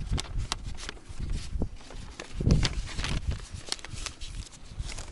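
Footsteps and handling noise close to the microphone: irregular sharp clicks and soft low thumps, loudest about two and a half seconds in.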